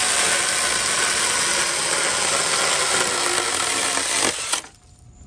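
GardenJoy 4-inch cordless electric mini chainsaw running and sawing through a dead branch about 2 inches thick, a loud, steady cutting noise that stops suddenly about four and a half seconds in. The saw chops through the branch easily.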